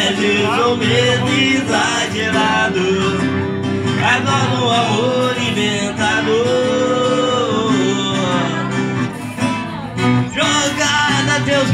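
Live band music: a man singing into a microphone over acoustic guitar accompaniment.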